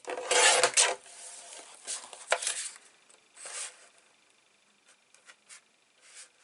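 Designer paper being handled and cut on a sliding-blade paper trimmer: a loud rustling scrape in the first second, then shorter rasping strokes, with light clicks and taps near the end.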